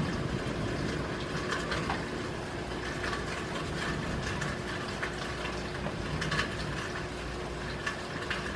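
Rain falling steadily, with scattered close drips and splashes.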